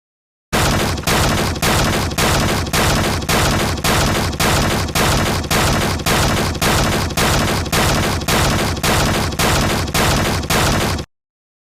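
A loud, harsh sound effect of about twenty near-identical bangs, roughly two a second, that starts abruptly and cuts off abruptly near the end.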